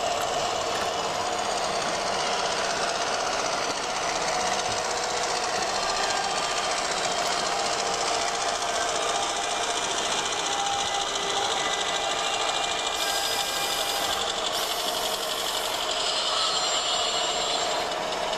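Gauge 1 model train running on the layout track: a steady, fast mechanical chatter from its drive and wheels.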